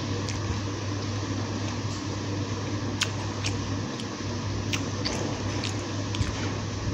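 Close-up chewing of a bitten samosa, with a handful of scattered sharp, crisp crunches and clicks from the pastry crust. A steady low hum runs underneath.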